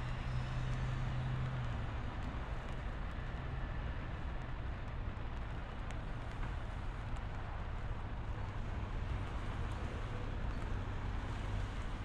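A train running past: a steady rumble with a low hum, the hum strongest for the first couple of seconds.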